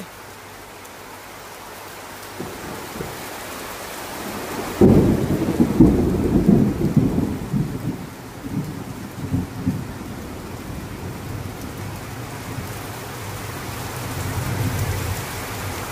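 Torrential rain pouring steadily. About five seconds in, thunder breaks out suddenly and rolls on in rumbles for several seconds. A fainter rumble swells again near the end.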